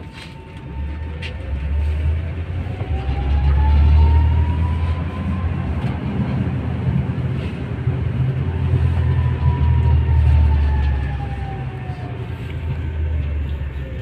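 Electric tram heard from inside the passenger car: the traction motors whine over a heavy low rumble of wheels and body. The whine rises in pitch for about five seconds as the tram speeds up, holds, then falls steadily through the last several seconds as it brakes to a stop.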